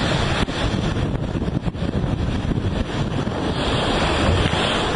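Strong wind buffeting the microphone over the rush of rough sea along a sailing yacht's hull, with spray coming over the bow. The hiss swells toward the end.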